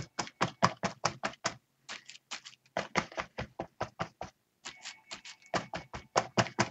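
A paint sponge dabbed rapidly onto a paper journal page: quick taps, about six a second, with two short breaks.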